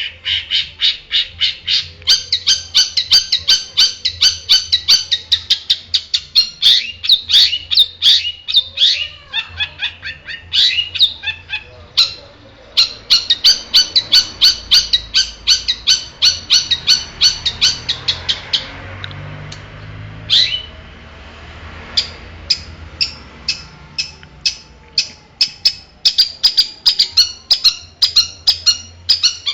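A long-tailed shrike (cendet) singing a fast, harsh, chattering song of short repeated notes, several a second. It breaks off briefly about twelve seconds in and again around twenty seconds.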